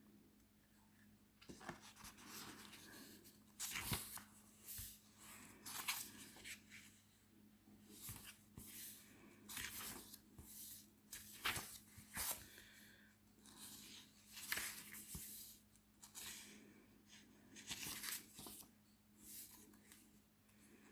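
Paper rustling as the pages of an oracle deck's paperback guidebook are turned and handled, in irregular crisp swishes every second or so.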